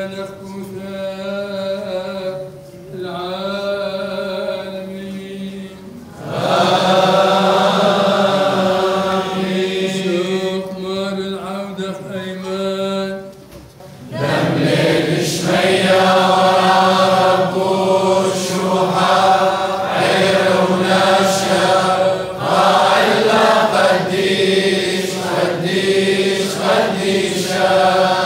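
Men's voices singing a Chaldean liturgical chant in long, sustained phrases, with two short breaks: about six seconds in and about halfway through. The second half is louder and fuller.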